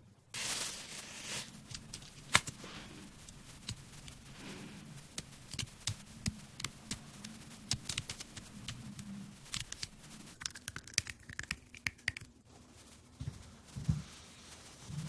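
Plastic bubble wrap being handled and popped: a steady crinkling of the plastic with many sharp, irregular pops and crackles, one of them much louder about two and a half seconds in.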